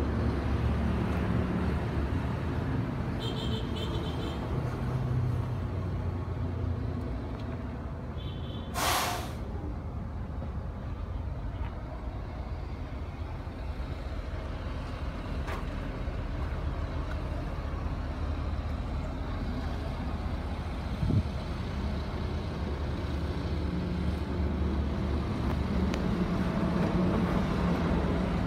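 Hyundai three-axle dump truck's diesel engine idling with a steady low hum. About nine seconds in comes one short, sharp hiss of air let out of the air brake system, and later a single light knock.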